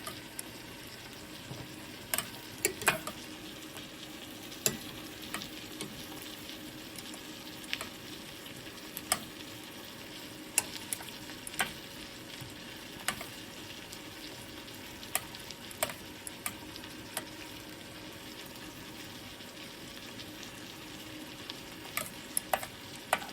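Food sizzling steadily in a pan, with a utensil clicking and scraping against the pan a dozen or so times at irregular intervals as it is stirred.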